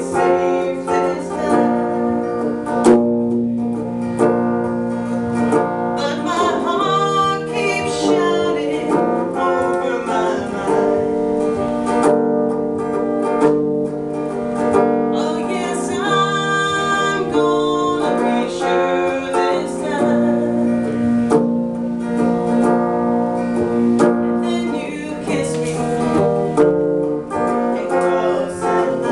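Live song: a solo singer sings over their own electric guitar, playing chords and held notes.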